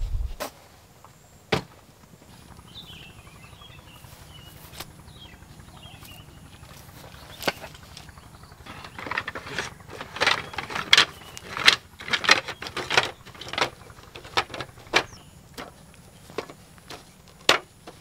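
A series of sharp clicks and knocks, objects being handled, bunched together from about nine to fourteen seconds in, over a faint steady background.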